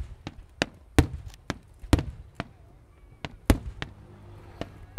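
Fireworks going off in an irregular run of sharp bangs and cracks, several a second, the loudest about one, two and three and a half seconds in, over a low rumble.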